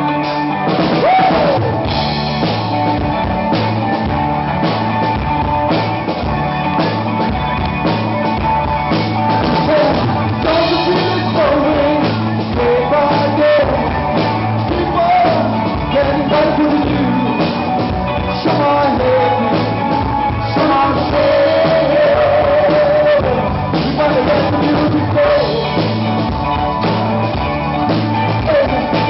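Live rock band playing with electric guitars, bass guitar and drum kit, and a man singing lead.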